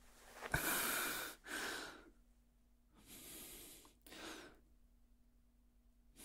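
A man's breathing, close to the microphone: a long, loud breath, a shorter one right after, then two softer breaths.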